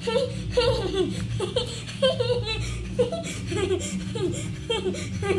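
A child laughing in a run of short repeated bursts.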